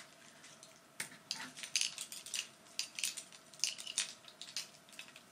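Close-up handling noise: irregular crinkles and light clicks as a small object is turned over in the hands. It starts about a second in.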